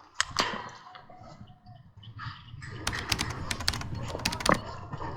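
A quick, irregular run of sharp clicks and snaps from airsoft guns firing in the field, starting about three seconds in and lasting under two seconds, after a couple of isolated clicks at the start.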